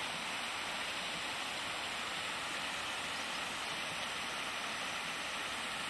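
Steady, even hiss of rushing water, with no separate splashes or knocks.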